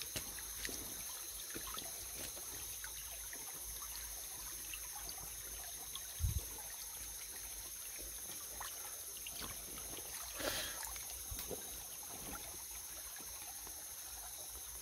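Shallow stream water trickling, with scattered small splashes and clicks as someone wades and searches it for shrimp. There is a dull thump about six seconds in and a short splash about ten and a half seconds in.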